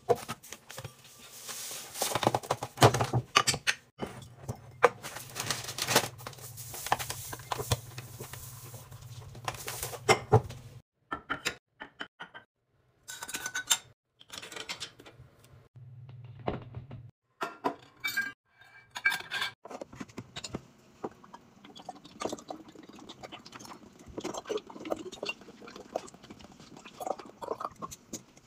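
Ceramic canisters, bowls and glass bottles being handled and set down on a counter: a run of sharp clinks, taps and knocks, broken by several abrupt cuts.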